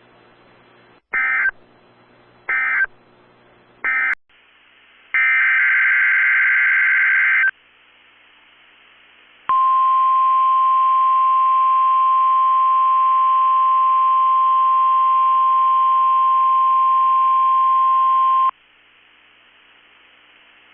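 NOAA Weather Radio test alert. Three short bursts of SAME digital header tones come first, then a longer burst of similar data tone about five seconds in. Then the steady 1050 Hz warning alarm tone sounds for about nine seconds and cuts off abruptly.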